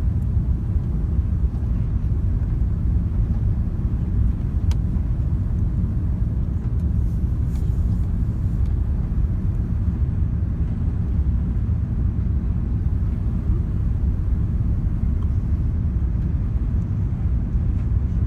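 Steady low rumble of an Airbus A380's engines and rushing air, heard inside the upper-deck cabin as the airliner climbs out after takeoff.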